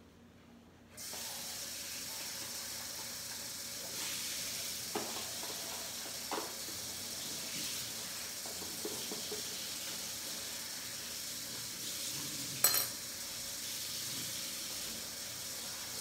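Kitchen tap turned on about a second in, water running steadily into the sink while a bowl is washed out. A few light knocks, and a sharper clatter of the bowl near the end.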